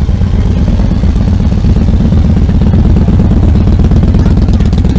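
A large cruiser motorcycle's V-twin engine idling close by, running steadily with a rapid, even pulse.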